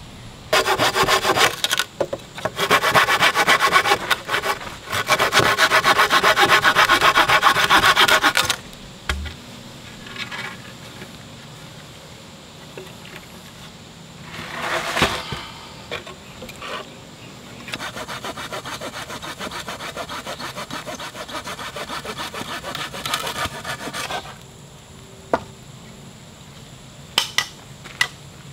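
Hand saw cutting through a wooden branch in fast, rasping strokes, in three runs over the first eight seconds. Later comes a quieter stretch of steady scraping, and a few sharp knocks near the end.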